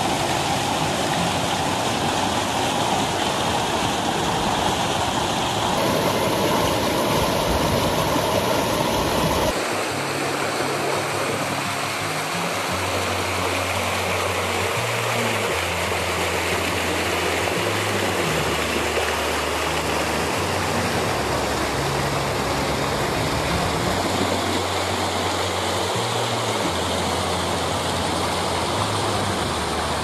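Waterfall water rushing over rocks, a steady full noise with two abrupt changes in tone early on. From about ten seconds in, background music with a stepping bass line plays over it.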